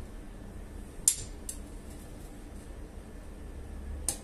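A pause in hammering on steel: a low steady hum with two light metallic clinks about a second in, then a small ball-peen hammer's sharp blows on a bayonet blade resting on a steel block start again near the end.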